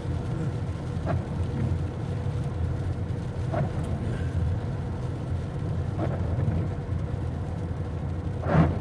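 Steady road and engine drone inside a car at highway speed on a wet interstate. A brief sound cuts through about every two and a half seconds, the loudest near the end.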